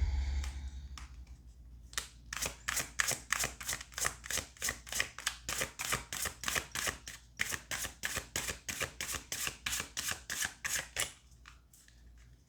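Tarot cards being shuffled by hand, a quick regular run of crisp card slaps at about four or five a second that stops about a second before the end. A single thump at the very start.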